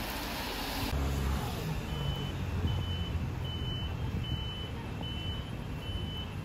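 Low city-traffic rumble, with an electronic beeper sounding short, evenly spaced high beeps, a little more than one a second, from about two seconds in.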